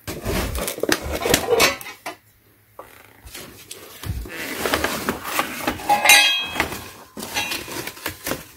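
Steel tubes and brackets of a portable tire changer clanking and scraping against each other as they are handled and lifted, with a ringing metal clink about six seconds in.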